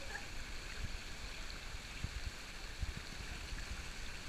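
Swimming-pool water lapping and sloshing against a GoPro camera held at the surface: a steady watery hiss with a few soft low thumps.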